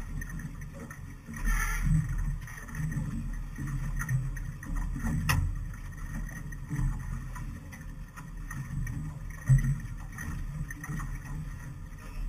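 Gusty low wind rumble on the microphone aboard a small boat on the water. There is a brief hiss about a second and a half in, a sharp click about five seconds in, and a dull thump late on.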